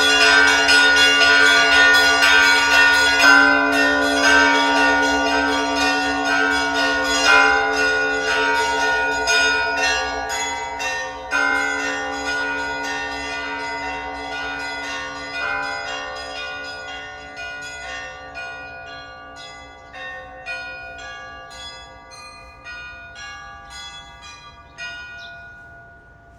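Church bells ringing: a deep bell struck about every four seconds under quicker strikes of smaller, higher bells. The ringing grows steadily quieter and fades away near the end.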